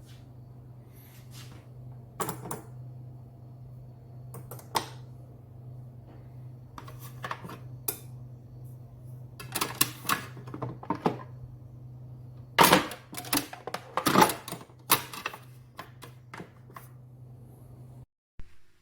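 A series of sharp clicks, knocks and clatters of objects being handled over a steady low hum, with the loudest clatter about two-thirds of the way through; the sound cuts off abruptly near the end.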